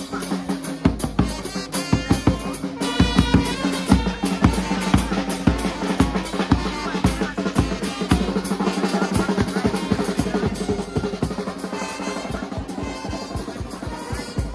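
Drums played by marching drummers in a procession: fast, dense drum strokes throughout, over a steady low hum.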